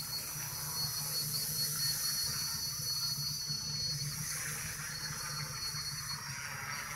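SK450 quadcopter hovering in position hold, its four brushless motors and 10-inch propellers giving a steady low buzz under a thin, steady high whine.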